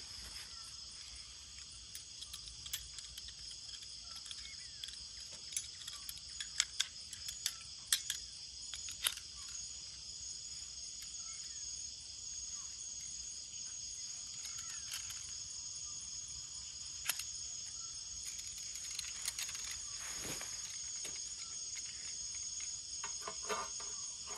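Steady high-pitched chorus of forest insects, with scattered sharp clicks and taps, several close together between about six and nine seconds in.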